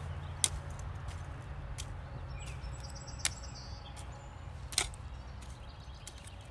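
A small hand shovel digging into garden soil: a few sharp strikes as the blade stabs into the dirt and turns it over, the loudest near the five-second mark, over a steady low rumble.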